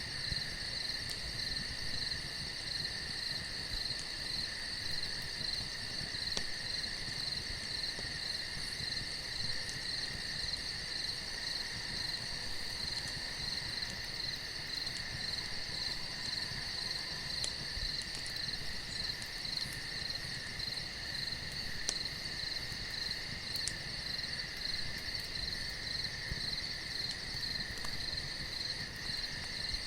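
Night crickets chirring continuously in several steady, rapidly pulsing high pitches, with a few faint sharp clicks scattered through.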